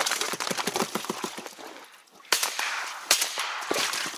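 Two shotgun shots about a second apart, each trailing off, fired at ducks flying over the marsh. Before them comes a run of small clicks and rustles.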